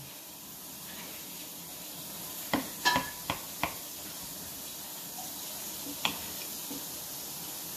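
Knife and fork cutting through a crisp breaded chicken cordon bleu on a ceramic plate: a steady soft scraping as the blade saws the crust, with a quick run of sharp clinks of metal on the plate a little before the middle and one more about six seconds in.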